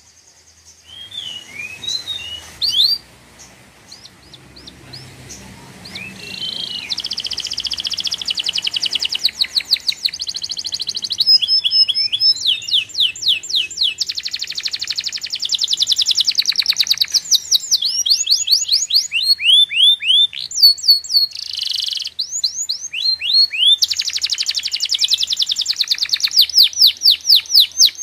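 A small bird singing: high chirps and sweeping whistles, building after a few seconds into fast trills of repeated notes in phrases broken by short pauses.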